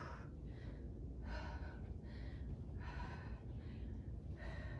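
A woman breathing hard from exertion during a strength-training set, with a breath about every second.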